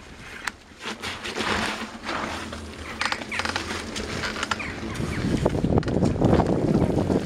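Bicycle riding over snow and slush, with crunching and squeaking from the bike in the middle stretch. Wind buffets the microphone in the last two seconds.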